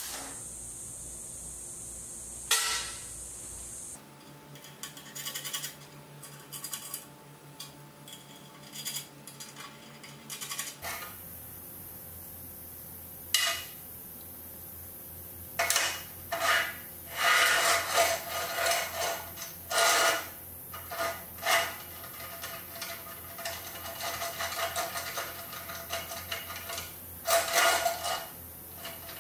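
Metal knocks, clanks and rubbing as a steel stand made from a scissor car jack is handled and set down on a steel table, a run of separate sharp knocks with most of them in the second half.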